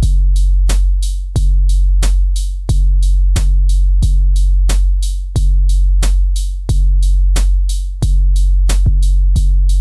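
Electronic music with a drum-machine beat: fast, evenly spaced ticks about six a second over a deep, steady bass.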